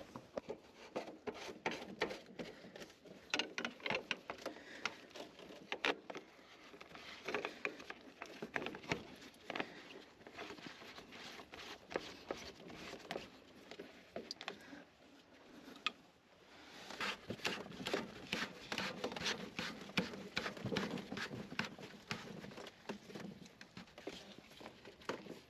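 Hands handling small parts and tools: a steady run of light clicks, taps and rustling, quieter for a moment past the middle and then busier again.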